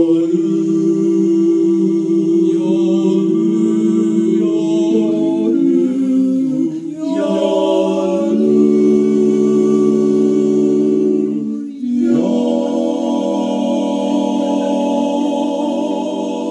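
Male vocal quartet singing a cappella into microphones, holding long sustained chords in close harmony. The chord changes twice, with short breaks about 6 and 12 seconds in, as the group draws out the close of the song.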